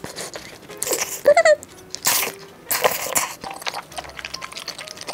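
Close-up eating sounds: a few short bursts of chewing and slurping on a mouthful of rosé tteokbokki with glass noodles, with a brief hummed 'mm' about a second in.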